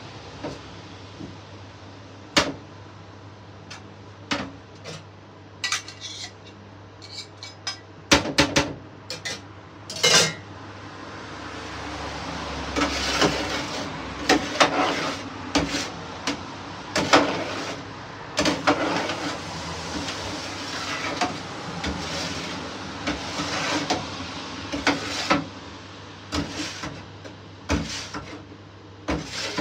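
Metal utensils clinking, knocking and scraping on the stainless-steel counter and trays of a rotisserie chicken grill. The knocks are sparse at first and come thicker and busier from about a third of the way in, over a steady low hum.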